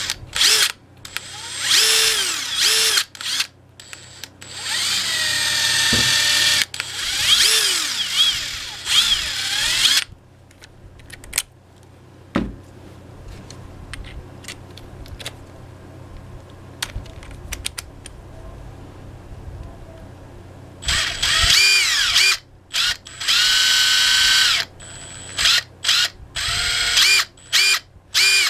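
Makita 18V brushless impact drivers free-running with no load in trigger bursts, the motor whirring up and down in pitch. The older TD170D runs first, for about ten seconds. After a quieter stretch with a click as a bit is pushed into a quick-release chuck, the new TD171D runs in several short bursts with a smooth sound.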